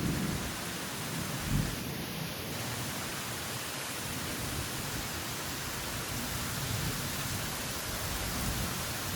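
Heavy rain pouring down in a steady hiss, with some low rumbling underneath.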